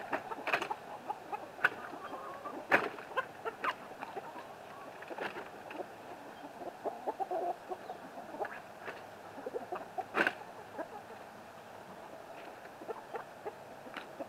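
Backyard chickens clucking, with scattered sharp clicks and knocks from the coop's wooden door and latch being handled and opened; the loudest knocks come about three and ten seconds in.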